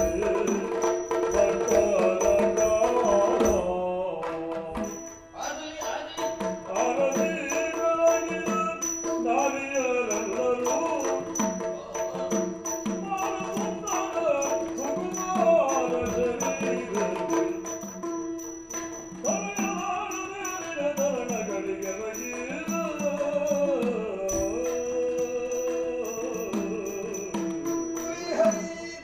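Yakshagana music: a singer's melodic line over a steady drone, with drum strokes and small cymbal clashes keeping the rhythm. The music drops off briefly about four seconds in, then resumes.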